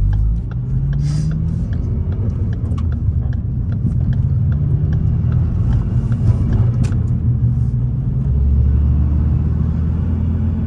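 A 2014 Ford Focus ST's 2.0-litre turbocharged four-cylinder engine running as the car drives, with a steady low drone and road noise. The low drone grows a little stronger near the end.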